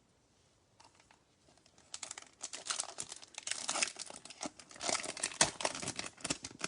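Foil wrapper of a Bowman Chrome trading-card pack being crinkled and torn open. It starts about two seconds in and carries on as a dense run of sharp crackles.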